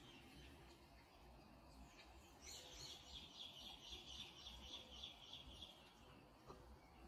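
Faint song of a small bird: a rapid run of repeated high notes starting about two and a half seconds in and lasting about three seconds, over a faint low background rumble.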